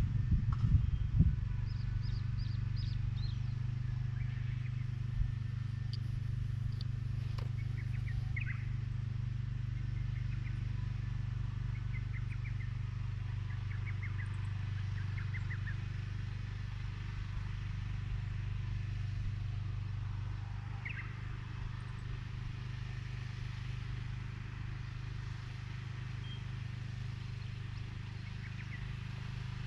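Engine of a seedling transplanting machine running steadily, with a few knocks in the first second or so. Birds chirp now and then over it.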